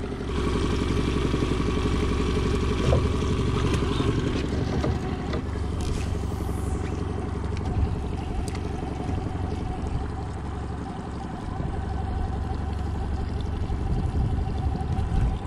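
A boat motor running steadily, with a constant low drone throughout.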